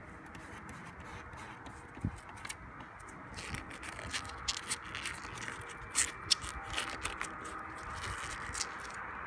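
Plasti Dip rubber coating being peeled by hand off chrome grille trim: irregular crackling, ticking and scraping as the film lifts and pulls away. The crackling gets busier about three and a half seconds in, after a single low thump about two seconds in.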